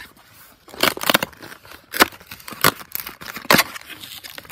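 Cardboard gift box being torn open by hand, with a series of short, sharp tearing and scraping sounds of the card flap and packaging.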